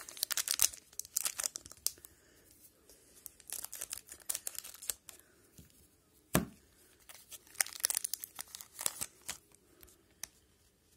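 A foil hockey-card pack wrapper crinkling and tearing open in three bursts of handling, with one sharp click about six seconds in.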